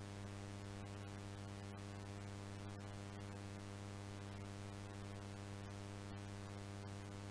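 Steady mains-type electrical hum with a faint hiss: the background noise of a VHS tape's audio track playing with no programme sound on it.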